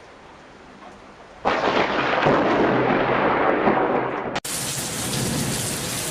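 Quiet for about a second and a half, then a sudden loud crash of thunder with heavy rain. A sharp break comes about four and a half seconds in, after which heavy rain continues steadily.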